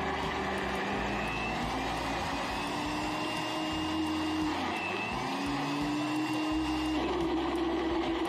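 Electric blender running at speed, churning a dark berry ice-blended drink. The motor's pitch climbs slowly, dips briefly about halfway through, then climbs again and shifts near the end.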